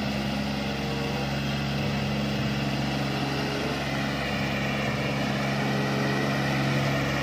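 Farm tractor engine running steadily while it pulls a rotary tiller through wet paddy soil, a constant drone.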